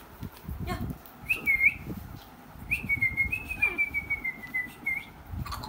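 A person whistling two thin, high whistles: a short one, then a longer one that slowly falls in pitch.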